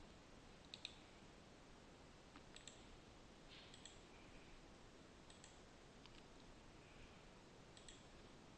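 Near silence: a handful of faint computer mouse clicks, a second or two apart, over a low hiss.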